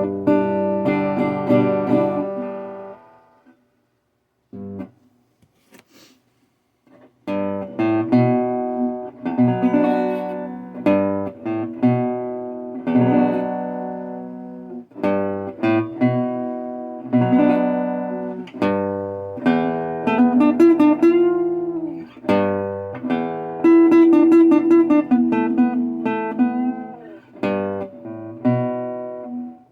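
Resonator guitar played with a pick: chords and picked notes ringing out, with a shaky tone that the player puts down to the camera's microphone not coping with the resonator's chorus. The playing stops for about four seconds near the start, with a few faint taps, then carries on, with a few notes bent in pitch.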